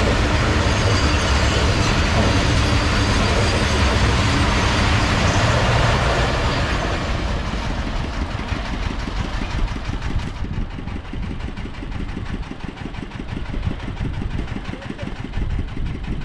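Loaded BOXN freight wagons rolling past with a loud, steady rumble of wheels on the track. The noise fades after about seven seconds as the end of the train goes by, leaving a quieter background of idling engines.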